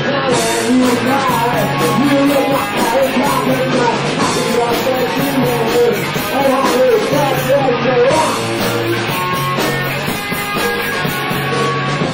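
Punk rock band playing a loud, continuous song on drum kit and electric guitar.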